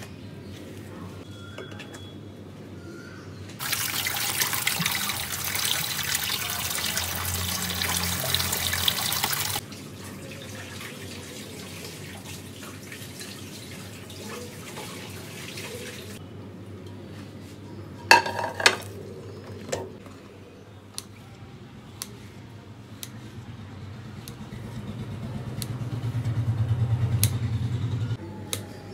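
Kitchen tap running water into a sink for about six seconds, switched on and off abruptly. A few sharp clatters follow later.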